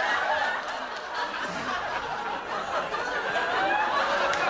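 Studio audience laughing, a steady wave of laughter from many people at once.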